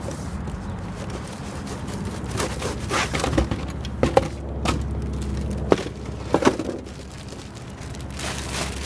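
Cardboard box of hubcaps being opened and handled by hand: irregular tearing, rustling and knocks, thickest in the middle, over a steady low hum.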